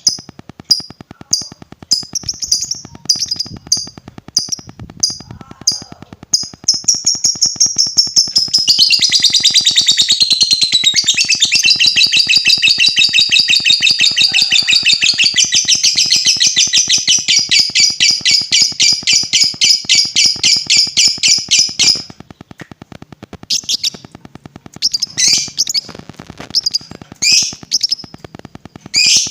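Lovebird calling: a run of short, sharp, high chirps about twice a second, then a long, fast chattering trill (ngekek) lasting about fourteen seconds, then scattered chirps again.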